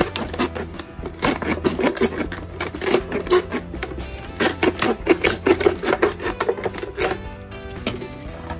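Snap-off utility knife blade sawing through a thin plastic bottle: rapid crackling clicks that stop about seven seconds in, over background music.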